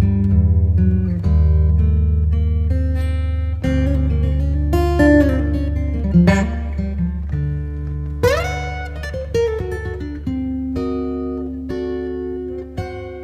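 Background music: plucked guitar playing over a steady low bass line, with a bent note about eight seconds in.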